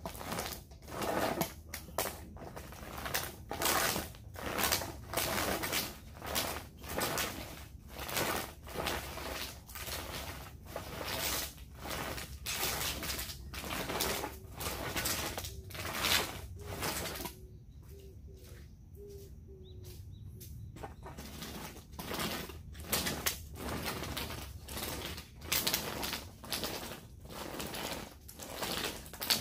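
Spiked hole-making roller rolled back and forth over soil-filled seedling trays, pressing planting holes: a rhythmic run of short strokes about two a second, pausing for a few seconds about two-thirds of the way through.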